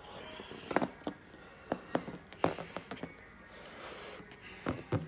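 Handling noise from a cloth Christmas stocking being felt and rummaged by hand: scattered short clicks and rustles, a cluster in the first half and a couple more near the end.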